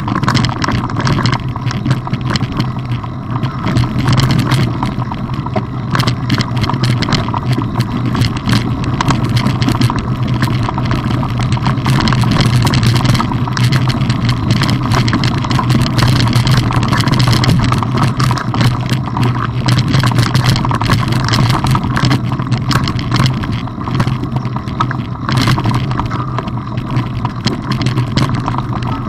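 Mountain bike ridden over a rough dirt singletrack, picked up by a camera riding along: a steady low rumble under constant small knocks and rattles from the bumpy trail.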